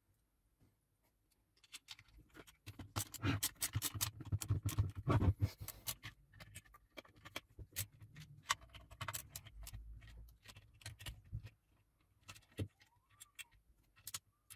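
Small clicks, taps and metallic rattles of casing parts, screws and tools being handled while a soldering station is reassembled. The clicking is densest from about three to six seconds in, then turns into scattered clicks.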